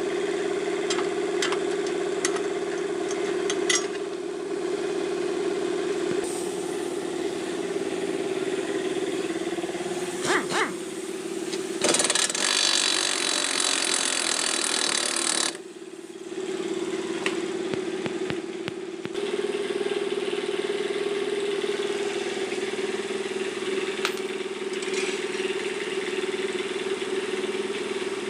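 Pneumatic impact wrench running for about three and a half seconds midway, loosening a rear shock absorber bolt. A steady mechanical hum with a fixed tone underlies it, and a few sharp clicks and knocks of metal tools come earlier.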